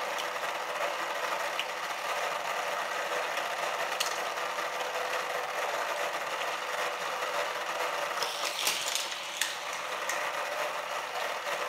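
Modified Hot Wheels booster's small electric motor running steadily, its spinning tyre wheels whirring, powered at 3 volts from a 1-amp adapter. Sharp clicks and knocks as die-cast toy cars are fed in and fired out onto the plastic track: one about four seconds in and a cluster near the end.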